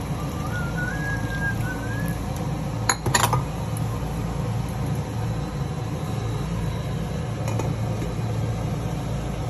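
Cooking pan on a stove with a steady low rumble underneath, a faint wavering whistle in the first two seconds, and a sharp clatter of cookware about three seconds in. A fainter clink comes near the end as a glass lid goes onto the pan.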